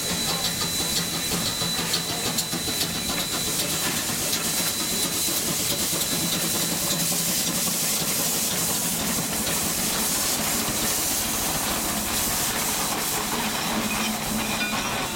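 Shay geared steam locomotive hissing steadily as it rolls past at close range, with faint clicks from its running gear and wheels.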